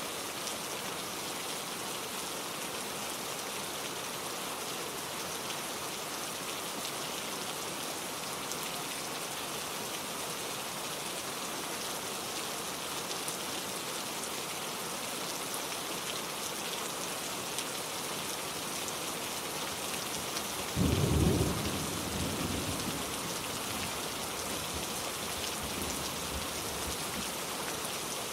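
Steady rain. About three-quarters of the way in, a sudden thunderclap breaks in with a deep rumble that fades over a couple of seconds.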